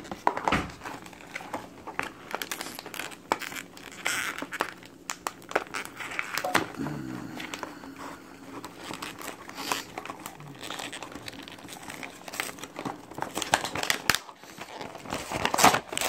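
Packaging being handled and opened by hand: irregular crinkling, crackling and tearing of the wrapping, with louder bursts of crinkling near the end.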